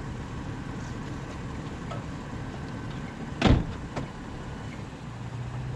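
Toyota FJ Cruiser's V6 engine idling with a steady low rumble; about three and a half seconds in the driver's door slams shut once, followed by a lighter click.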